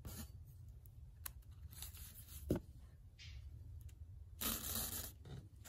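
Sewing thread drawn through the punched holes of paper pages: a short rasping hiss about two seconds in and a longer one of about a second near the end, with light taps and rustles of the paper being handled.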